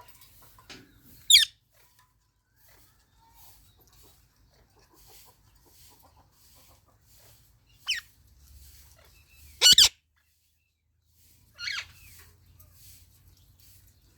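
Psittacula parakeets calling with short, high-pitched falling screeches: one about a second in, then more from about eight seconds on, including a quick double call that is the loudest.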